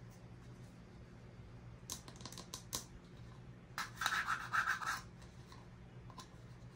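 Toy packaging being handled: a few light clicks, then about a second of scratchy rubbing and scraping.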